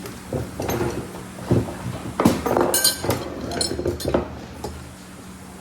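Metal engine parts and tools clanking and clinking as an outboard engine is handled, with several sharp knocks and one brief high metallic ring about three seconds in.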